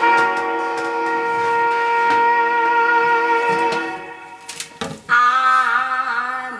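Recorded jazz ballad with horns: a long held saxophone and brass chord that fades about four seconds in, then a wavering note with vibrato near the end as the song leads into its vocal.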